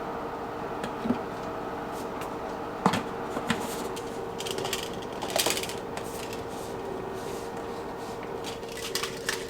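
Kitchen handling sounds while a protein shake is made: a few sharp knocks and a short patch of clattering from containers and utensils, over a steady room hum.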